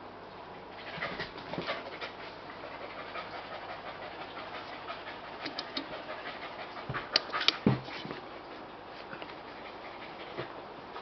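A small spitz-type dog panting, with a few sharp clicks and knocks, the loudest about seven to eight seconds in.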